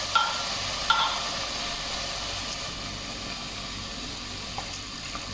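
Sardines and sautéed garlic and onion sizzling in a pot just after a little water has been added, a steady hiss that slowly dies down. Two short ringing clinks sound near the start, about a second apart.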